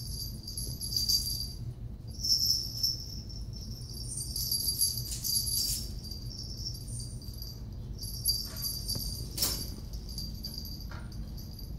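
Small bells on kittens' collars jingling in irregular bursts as the kittens scamper and play, with a single knock near the end.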